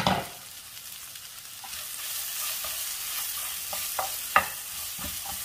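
Onion, tomato and spice masala sizzling in a non-stick frying pan as the lid comes off, the hiss growing louder from about two seconds in. A spatula stirs it, knocking and scraping against the pan several times in the second half, once sharply.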